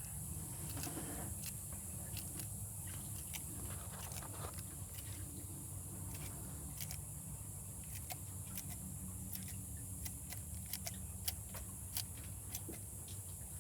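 Monitor lizard biting and working a hard-boiled egg in its jaws: scattered, irregular sharp clicks and cracks over a steady low background hum.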